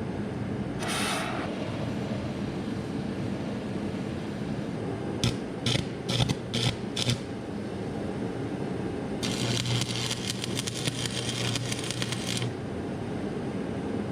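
Welder striking short arcs: five brief crackling bursts, then one crackling weld of about three seconds with a steady hum under it, welding a nut onto a broken-off seized bolt to extract it.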